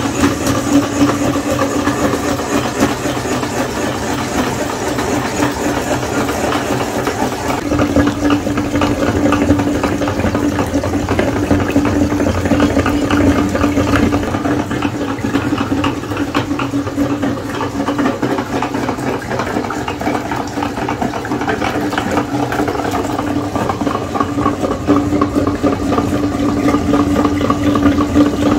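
Motorised meat grinder running steadily with a constant hum while jelly is pushed through its perforated plate.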